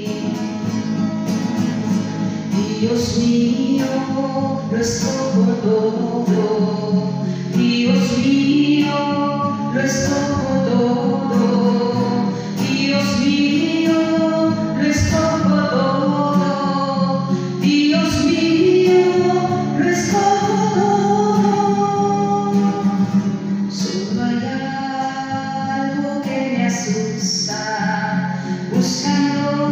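A woman singing into a microphone while accompanying herself on a strummed acoustic guitar.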